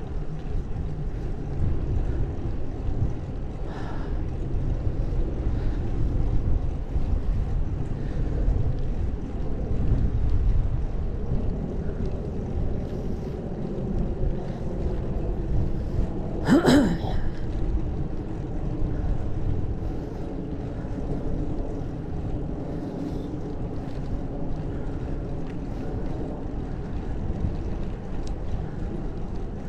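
Wind rushing over a GoPro's microphone as a bicycle rides along a paved street, heavier in the first half. About halfway through comes a short, high-pitched squeak.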